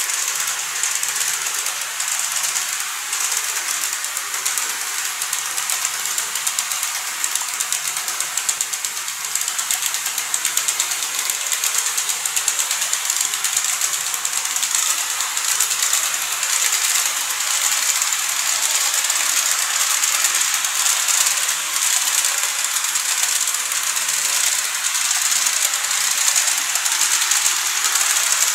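KATO N-scale model train, a DF200 diesel locomotive hauling Seven Stars in Kyushu coaches, running steadily over plastic track, giving a fine, rapid, even clicking and rattling of wheels on rail.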